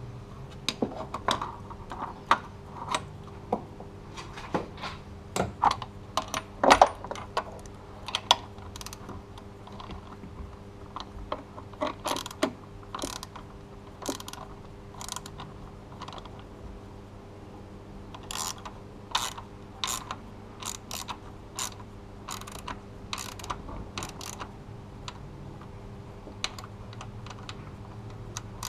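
Hand socket ratchet clicking in irregular runs as a bolt at the serpentine belt tensioner of a Mercedes M104 engine is worked, with the odd clink of metal tools; the loudest knock comes about seven seconds in.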